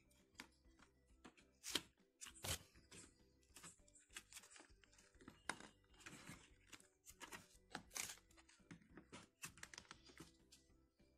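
Nylon helmet straps and a plastic action-camera mount being handled and pulled tight: scattered soft rustles and clicks. Faint background music runs underneath.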